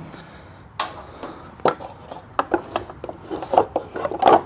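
Irregular clicks and knocks of tools and hardware being handled during a skid plate install, with a quick cluster of louder knocks near the end.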